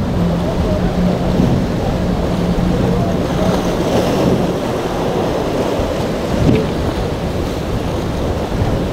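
Twin outboard motors of a Pro-Line cabin boat running through rough, breaking inlet waves, with heavy surf wash and wind buffeting the microphone. The engines' steady hum is plain for the first few seconds, then fades under the rush of water and wind.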